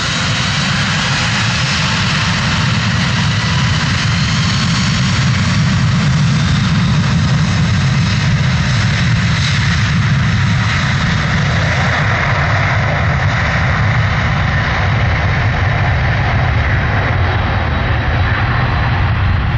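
Boeing 767 airliner's twin jet engines at takeoff power during its departure roll: a loud, steady jet roar with deep rumble and hiss. It swells slightly over the first few seconds, and a faint high whine rises a little near the end.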